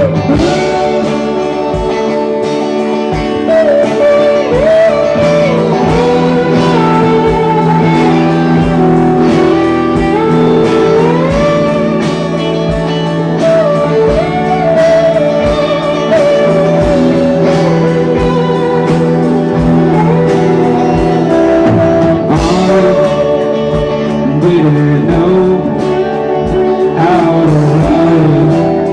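Live band playing a slow song, with sliding, gliding guitar lines from a slide guitar, singing and a steady drum beat.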